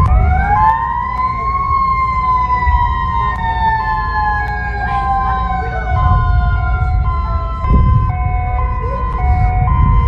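Samoan EAS emergency alert alarm: an electronic tone stepping between a few pitches about twice a second, with a siren wail over it that rises in the first second or so, slowly falls and cuts off near eight seconds in, all over a low rumble.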